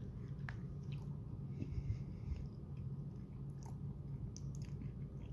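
A person chewing a mouthful of a rice-and-chicken microwave bowl, with a few faint clicks over a steady low hum.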